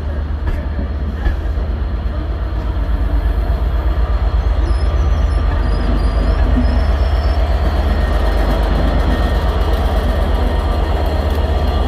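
Class 67 diesel locomotive's two-stroke V12 engine throbbing with a rapid, even pulse as the train moves past, growing louder over the first few seconds as the locomotive draws near.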